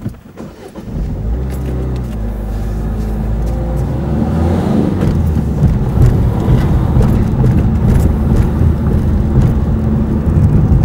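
Car engine and road noise heard from inside the moving car. The engine note climbs as the car picks up speed over the first few seconds, then settles into a steady low rumble of engine and tyres.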